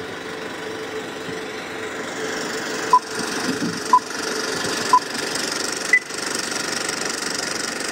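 Film projector running steadily, with film countdown-leader beeps over it: three short, same-pitched beeps a second apart starting about three seconds in, then a higher beep a second later.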